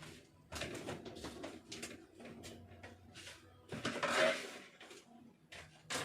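A ceiling-lamp cover being handled and fitted over an LED lamp: a string of knocks, scrapes and rustles, with a louder scrape about four seconds in.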